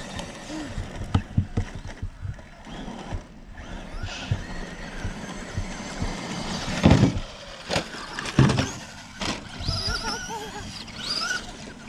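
Electric RC trucks driving on gravel, their motors whining, with a few heavy thumps about 7 and 8.5 seconds in. Near the end comes a high whine that rises in pitch.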